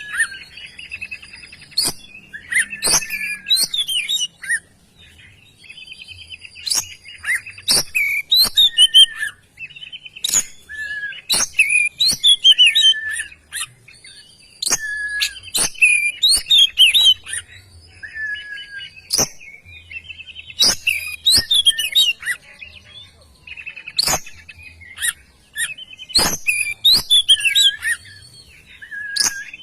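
Oriental magpie-robin singing vigorously: varied whistled phrases with gliding notes, mixed with sharp clicking notes, in bursts of a few seconds separated by short pauses.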